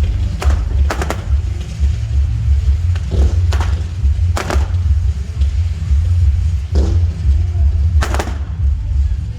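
Fireworks going off, about six sharp bangs spread across a few seconds, over a heavy low rumble of wind buffeting the microphone.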